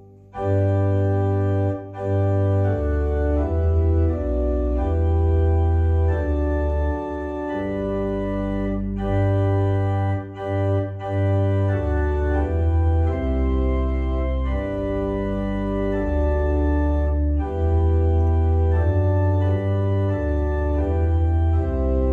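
Console organ playing a hymn on manuals and pedals: sustained chords over deep pedal bass notes, changing about once a second. It comes in just after a short break at the start, with brief lifts between phrases.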